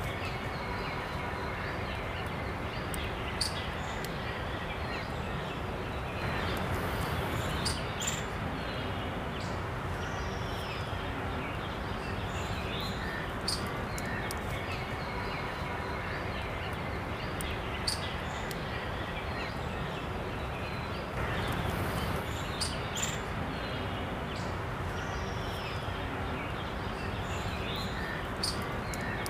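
Outdoor nature ambience: a steady noise bed with faint bird chirps and scattered sharp clicks. The same pattern comes round again about every 15 seconds, like a looped ambience track.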